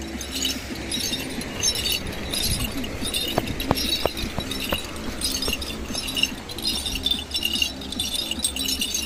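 Small bells on a horse's neck strap jingling again and again as it walks, over a steady low rumble.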